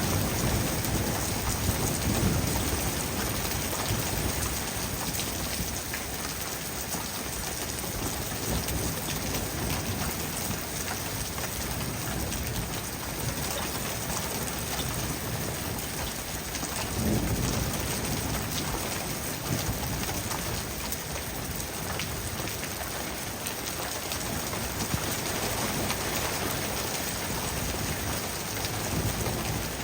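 Heavy rain falling steadily on surfaces, with low rumbles of thunder swelling near the start and again about halfway through.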